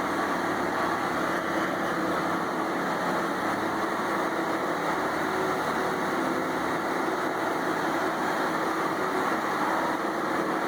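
Large wood chipper running steadily with an even mechanical noise and no distinct bites or impacts.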